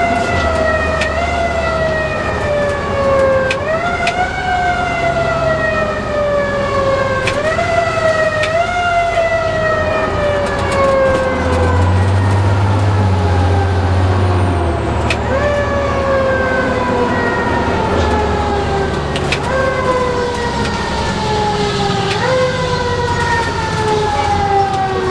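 Fire truck siren wailing, each time rising quickly in pitch and then falling slowly over several seconds, over and over, heard from inside the truck's cab.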